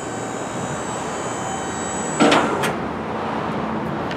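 MAXON TE-33 Tuk-A-Way liftgate's hydraulic pump motor running steadily as the platform folds and tucks under the truck body, with a loud metallic clank about two seconds in and a smaller one just after as the platform reaches its stowed position.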